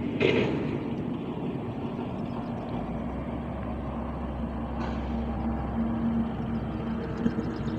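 Steady low mechanical drone with a constant hum, deepening into a low rumble for a few seconds in the middle, with a short noise just after the start.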